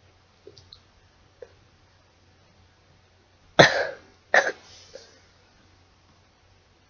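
A person sneezing twice in quick succession, under a second apart, the first sneeze the louder, after a few faint short sounds.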